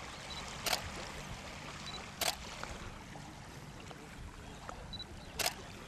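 DSLR taking three shots. Each shot is a short high focus-confirmation beep followed about a third of a second later by a sharp shutter click, under a faint steady background hiss.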